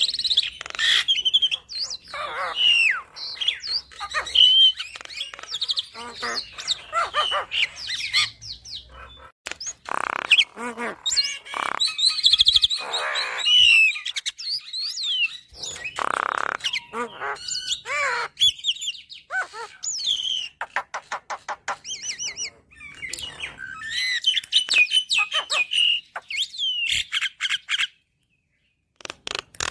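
Javan myna (jalak kebo) singing a long, varied song of whistled glides, chirps and harsh notes with short pauses between phrases. It cuts out completely for a moment near the end, then resumes.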